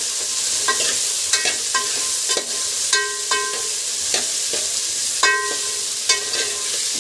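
Chopped mixed vegetables sizzling in hot oil in an aluminium pot while a steel spoon stirs them. The spoon strikes the pot about a dozen times at irregular intervals, and each strike rings briefly.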